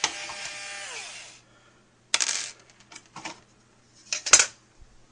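Intro sound effect: a ringing metallic clatter lasting about a second and a half, its tones sliding down as it fades, then three sharp clinks roughly a second apart.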